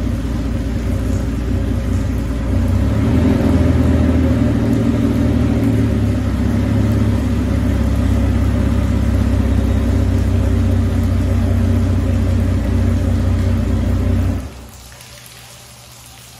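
Suzuki 350 outboard motors running on flushing water from a hose, getting louder about three seconds in. They shut off abruptly near the end, leaving a faint splash and trickle of water.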